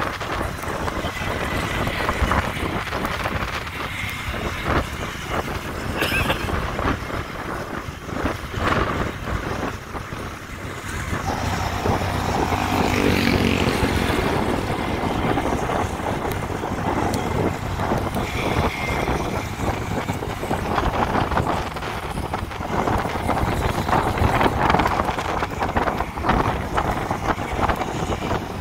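Wind buffeting the microphone of a moving motorcycle, over the steady run of its engine and tyres on the road, getting louder from about eleven seconds in.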